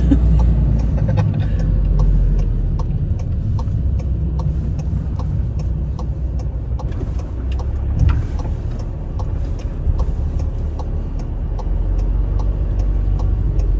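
Road vehicle driving, heard from inside: a steady low engine and road rumble, with a light regular ticking about twice a second.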